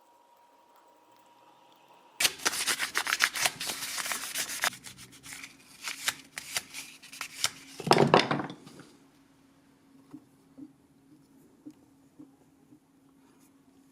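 Hand work: rapid, dense rubbing and scraping starts suddenly about two seconds in and goes on for about seven seconds, loudest near the end of that stretch. After it come only a few faint ticks.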